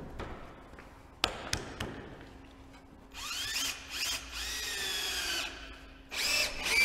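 Cordless drill-driver driving a screw through a fixing plate at a ridge-tile joint down into the ridge batten. Its motor whine rises and falls in pitch in a long run from about three seconds in, then again briefly near the end, after two sharp knocks about a second in.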